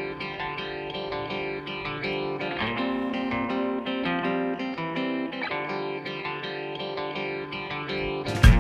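Background music: guitar notes picked in a steady pattern, with a louder, fuller passage starting near the end.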